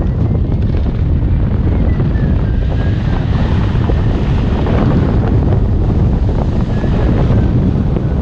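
Steady, loud wind rushing over the microphone during a hang glider flight.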